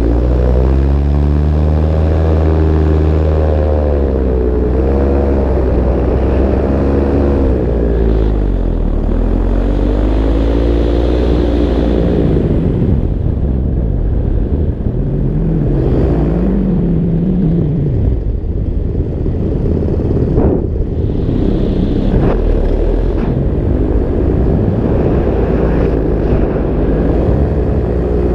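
Paramotor engine and propeller running in flight, the pitch rising and falling slowly as the throttle is worked, over a low rumble of wind on the microphone.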